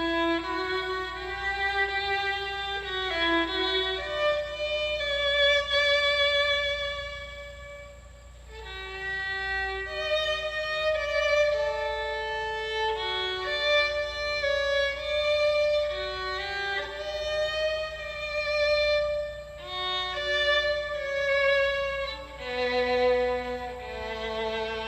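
A Romanian-made violin played solo: a slow melody of sustained notes with vibrato, in a smooth, mellow, dark tone. The instrument is new and not yet played in.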